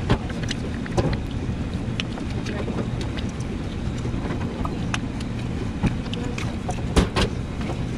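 Scattered sharp plastic clicks and knocks as a compressor's start relay is worked and pushed onto the terminal pins, the loudest a quick pair near the end. A steady low hum runs underneath.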